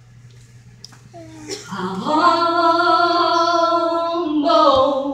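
A woman singing a gospel song solo into a microphone. After a quiet pause she slides up into one long held note, shifts note briefly, and breaks off near the end.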